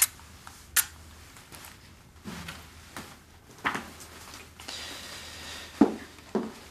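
A few sharp clicks in a quiet room, then footsteps on a hard floor near the end, about two a second.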